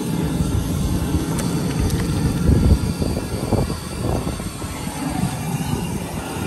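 Propane jet burner under a crawfish boil pot, burning with a steady low rush. Onions and small potatoes are tipped from a metal bowl into the water, with a splashing tumble loudest about two and a half seconds in.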